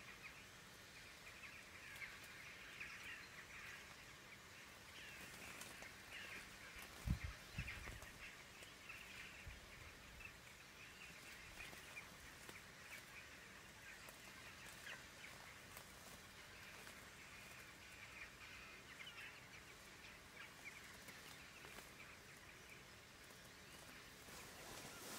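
Faint birds calling in a steady scatter of short chirps, with one dull low thump about seven seconds in.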